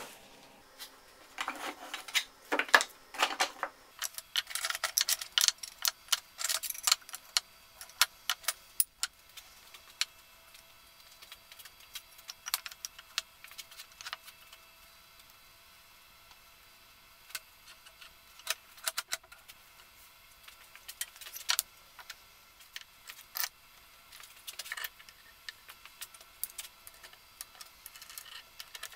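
Workbench handling sounds: a sheet of paper rustling as it is laid on a wooden disc, then a block of glued-up wood strips and metal sash clamps being set in place. These come as a string of sharp clicks and knocks, dense for the first several seconds, then sparser and in small clusters.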